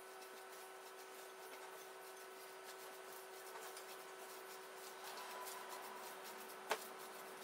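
Faint scraping and squishing of a spoon stirring thick mashed black bean burger mixture in a glass bowl, with one sharp click near the end.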